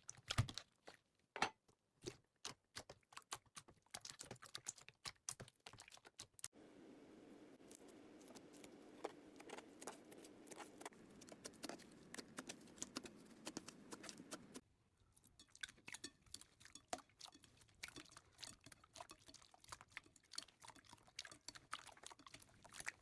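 Slime being handled: a quick run of small, faint clicks and pops. From about six seconds to about fifteen seconds a steadier, low squishing noise sits under the clicks, then it stops and the clicking goes on alone.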